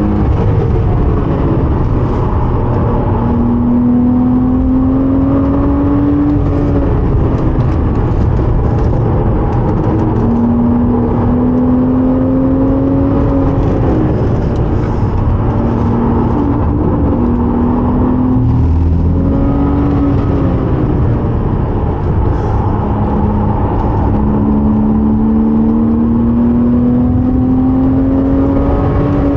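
Porsche 987.2 Cayman S's 3.4-litre flat-six under hard acceleration. The engine pitch climbs through each gear and drops back at each shift, several times over, with heavy road and wind noise underneath.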